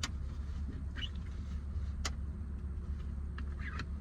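A few light, sharp clicks and small rattles from shift boot and trim parts being handled and fitted onto the shifter, over a steady low hum.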